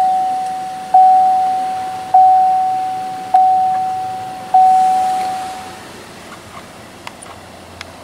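2015 Buick LaCrosse's dashboard warning chime sounding five times, about a second apart, each a single clear ding that rings out, just after the engine has been started.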